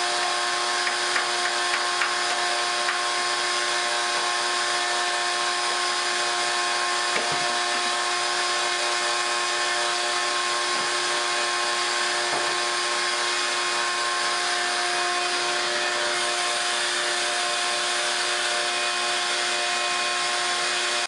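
Electric power tool motor running steadily at constant speed, with a steady whine over a dense noise; the kind of tool used in cutting or finishing granite countertops.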